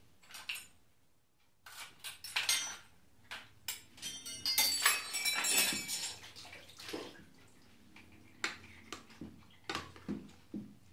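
Stainless-steel bowls and plates clinking and clattering against each other, with ringing metallic knocks, loudest about two to six seconds in, then a few softer clicks.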